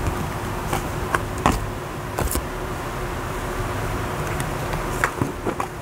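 Tarot cards being handled and flipped, making a handful of short taps and clicks, over a steady low background rumble.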